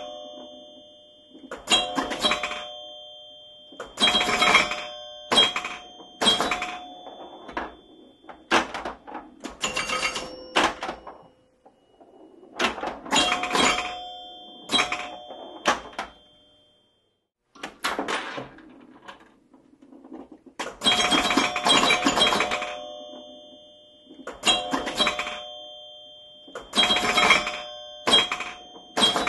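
Pinball machine in play: sharp clacking hits, each followed by ringing bell tones that die away, coming in irregular clusters every second or two. Near the middle there is a short silent gap.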